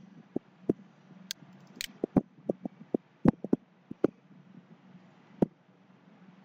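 Computer mouse clicking: about a dozen short, irregular clicks, most of them in the first four seconds, over a faint low steady hum.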